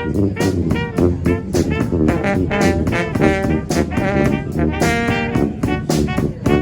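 A small brass band of four horns playing a tune in short, quick, rhythmic notes.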